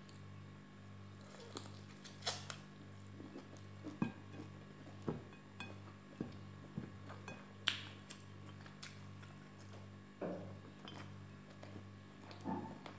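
Scattered light clicks and clinks of fingers and prawn shells against a ceramic plate and a small sauce bowl while prawns are eaten by hand, over a steady low hum.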